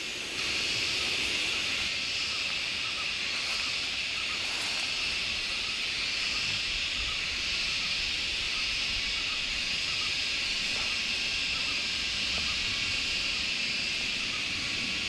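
Dense, steady chorus of insects, a high-pitched buzzing drone that comes in abruptly about half a second in and holds evenly.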